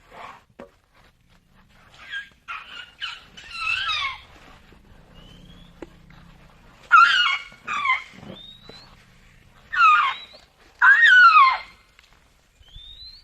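Asian elephant calf squeaking: a series of high calls that fall in pitch, in several bunches, the loudest near the end.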